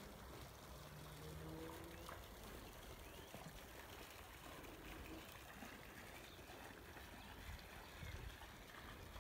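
Faint trickle and splash of a small fountain jet in a garden pond.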